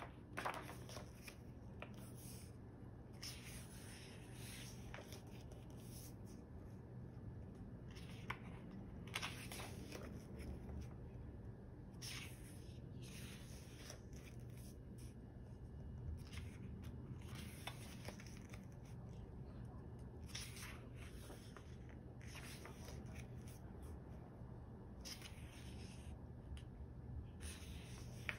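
Pages of a paperback photobook being turned by hand: short, soft paper swishes and rustles every second or few seconds, over a faint low steady hum.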